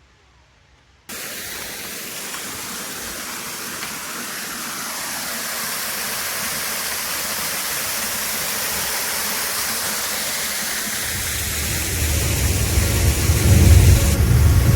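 Waterfall with water falling steadily, starting abruptly about a second in and growing gradually louder. In the last few seconds, music with a heavy bass comes in over it.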